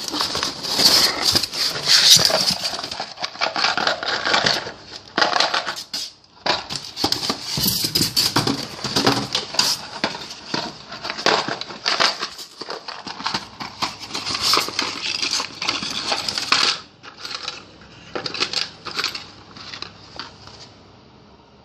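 Rustling, crinkling and small clattering as a box is opened and its packed toolkit items are handled: dense, irregular clicks and rattles that grow sparser and fade over the last few seconds.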